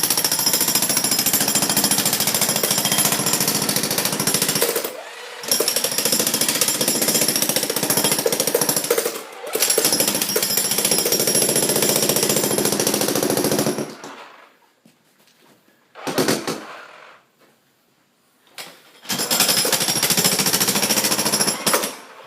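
Jackhammer breaking up concrete, with a fast, even hammering in long bursts. It stops briefly twice, then falls nearly quiet for several seconds apart from two short blips before starting up again near the end.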